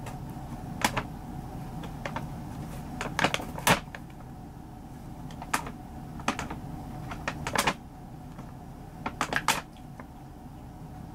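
Stiff paper shopping bag crackling and crinkling in short bursts as a cat shifts about inside it, in several separate clusters of sharp crackles.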